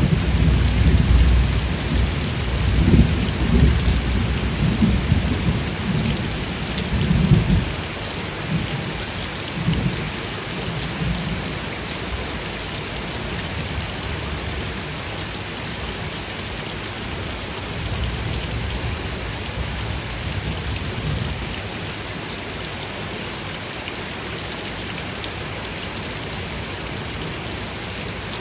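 Steady heavy rain, with low rolling thunder rumbling through the first several seconds and dying away about a third of the way in; fainter rumbles come and go until a little past halfway.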